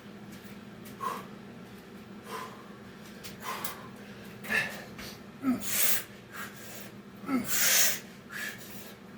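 A man breathing hard after exertion, with loud, forceful exhales from about halfway in, roughly every two seconds, each starting with a short voiced grunt.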